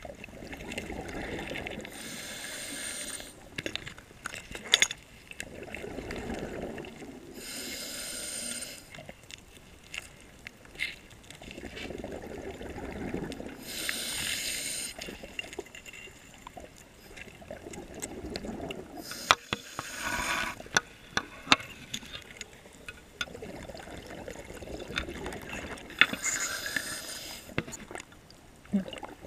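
Scuba diver breathing through a regulator underwater: a hissing inhale through the demand valve roughly every six seconds, five in all, each followed by the bubbling of the exhale, with scattered sharp clicks throughout.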